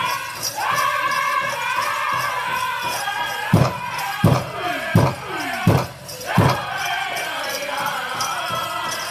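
Powwow drum group singing a chicken dance song, voices chanting high over a steady drumbeat. In the middle come five loud, evenly spaced drum strikes, less than a second apart, before the song carries on at its steady beat.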